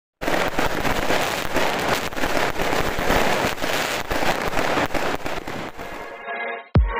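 Fireworks and firecrackers going off in a dense, continuous crackle of many sharp bangs. The sound cuts off suddenly about six seconds in, and electronic dance music with a thumping beat starts near the end.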